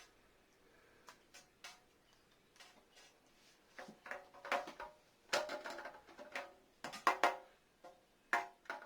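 Irregular plastic clicks, knocks and short squeaks from a Play-Doh dentist playset being handled while clay is pushed through it by hand, busiest from about four seconds in.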